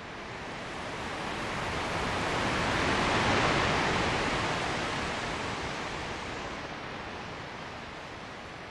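Ocean surf: a slow wash of waves that swells to a peak about three seconds in, then slowly fades.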